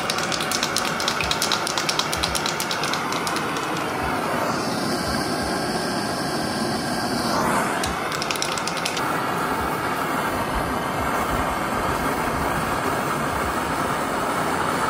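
A handheld gas blowtorch burning with a steady noise while an aerosol can of weld-through primer is shaken, its mixing ball rattling in quick runs at the start and again about eight seconds in. The can sprays with a hiss near the end.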